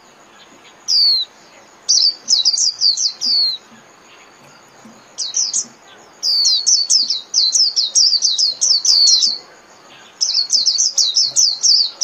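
White-eye singing the rapid, chattering 'líu' song: quick strings of high, downslurred notes, about five or six a second. The bursts run from half a second to three seconds, with short pauses between them.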